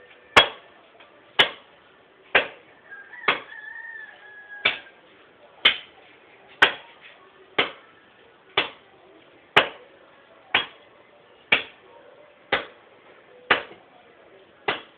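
Wood being chopped with an axe: steady, evenly paced blows, about one a second, each a sharp knock.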